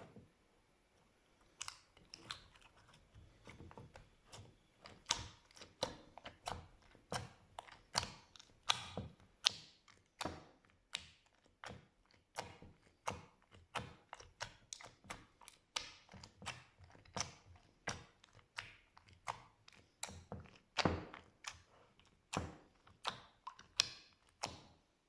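Slime being squished and poked, making a steady run of sharp wet clicks and pops, about two or three a second, some louder than others.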